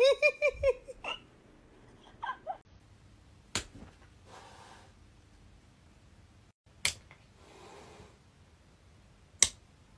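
Domestic cat spitting and hissing: three sharp spits a few seconds apart, the first two each followed by a short, soft hiss.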